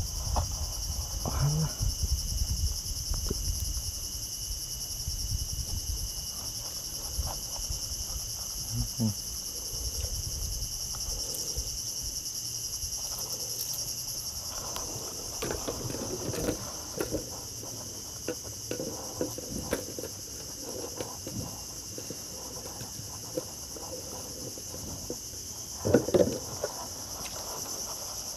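Steady high-pitched chorus of insects in mangrove forest, several pitches held unbroken. Scattered light clicks and knocks from handling the spinning reel and the boat come through it, with a short cluster of louder knocks near the end.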